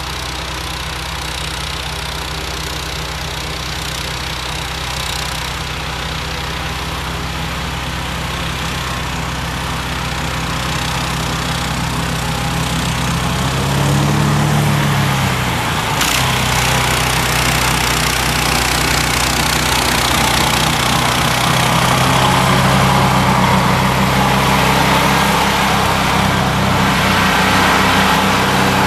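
Modified 16 HP engine of a John Deere 1032 snowblower, running steadily. About 14 seconds in its pitch briefly rises and falls back. A sharp click follows, and it runs slightly louder from then on.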